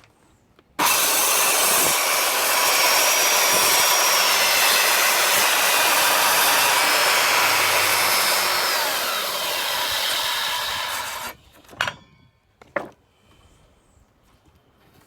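Circular saw starting up and ripping a narrow strip off a board for about ten seconds, its high motor whine dipping slightly near the end of the cut before the saw cuts off abruptly. Two sharp knocks follow shortly after.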